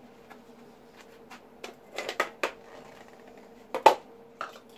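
Objects being picked up and set down on a steel welding bench: a string of short clicks and knocks, a cluster about two seconds in and the loudest near the end, over a faint steady hum.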